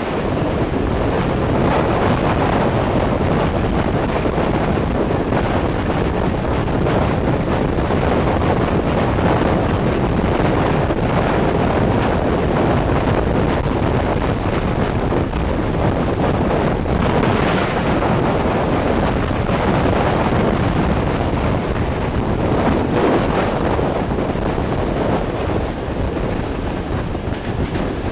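Wind rushing over the microphone from an open window of a moving passenger train, mixed with the train's running noise on the track; a loud, steady rush with no break.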